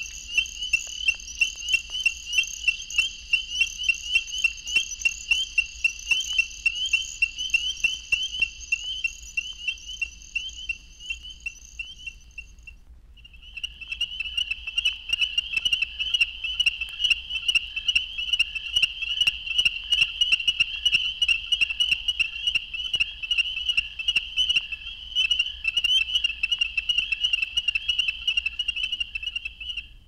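Ornate chorus frogs calling: a regular series of sharp, repeated chirp notes, played back from a vinyl record of field recordings. The calls break off briefly about halfway through, then resume denser and more overlapping.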